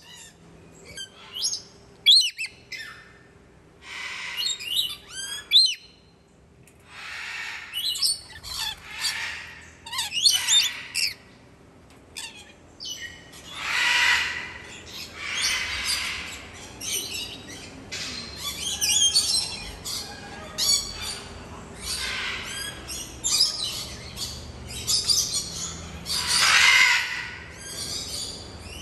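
Coconut lorikeets giving harsh, shrill squawks and chattering calls, one burst after another every second or two, with a short lull about twelve seconds in.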